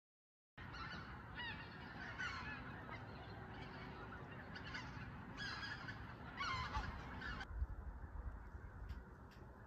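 Geese honking, a flock giving many short overlapping calls that stop abruptly about three-quarters of the way in.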